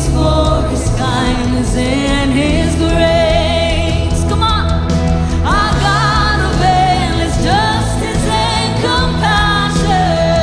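Contemporary worship song performed live: male and female voices singing together over acoustic guitar and keyboard, with sustained low notes underneath.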